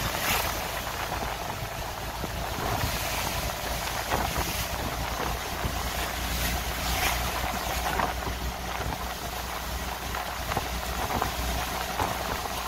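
Wind buffeting the microphone in irregular gusts over a steady low engine drone, as from a moving vehicle or boat.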